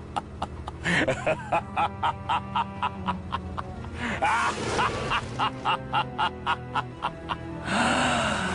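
A short music clip with a quick, steady beat and a few sliding tones.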